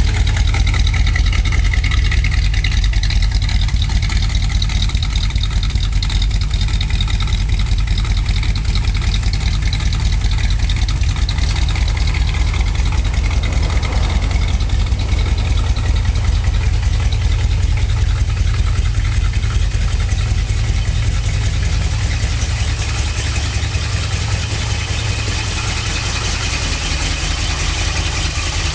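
1962 Ford Thunderbird's 390 V8 idling steadily with a deep, even rumble. It grows a little quieter over the last few seconds.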